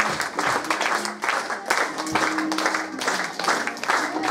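Audience clapping together in a steady rhythm, about three claps a second.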